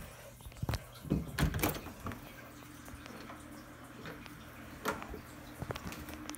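A door being opened and passed through: a cluster of knocks and clicks about a second in, then a few lighter clicks near the end.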